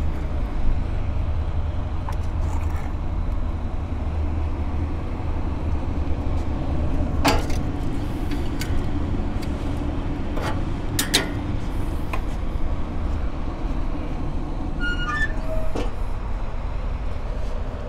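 Metal tongs clicking sharply against the steel grill grate a few times as a rack of ribs is laid on, over a steady low rumble.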